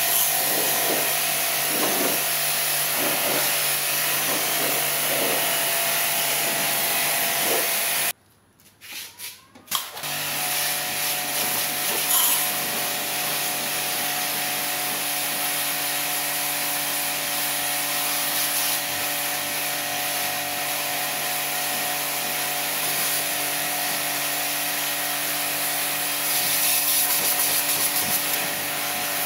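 StarQ W3 electric pressure washer running, its high-pressure water jet hissing against a car's body panels over the steady hum of the motor and pump. The sound cuts out for about two seconds around eight seconds in, then comes back.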